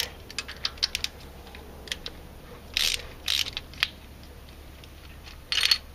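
Socket ratchet clicking as the rocker-arm bolts on a Jeep 4.0 cylinder head are loosened: scattered clicks in the first second, then short rasping runs of the pawl around three seconds in and again near the end.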